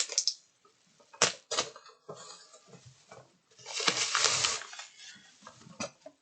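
Packaging of a mystery Funko Pop vinyl figure being handled and opened by hand: several sharp clicks and knocks, with a rustle of cardboard and plastic about two seconds in and a louder, longer one about four seconds in.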